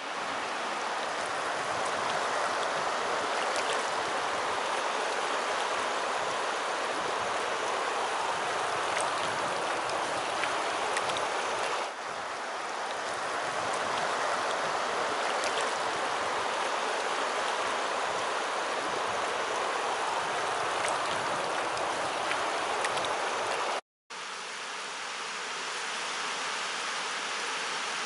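Shallow river running over rocks: a steady rushing of water, with a momentary cut to silence near the end.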